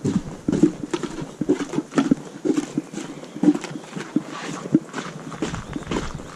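Footsteps walking through snow, a steady rhythm of about two steps a second.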